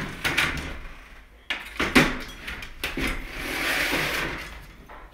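A series of knocks and clatters, the loudest about two seconds in, then a short rushing noise near the end.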